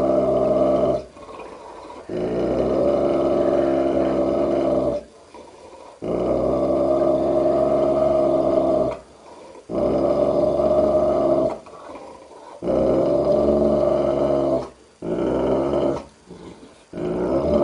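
Large mastiff-type dog growling at its own reflection in a mirror: long, continuous growls of one to three seconds each, one after another, with short pauses for breath between them.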